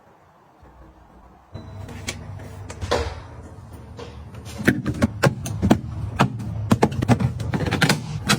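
Small household items being handled and set down, giving quick clicks and knocks that come thick and fast from about halfway in, over a steady low hum that starts suddenly about one and a half seconds in.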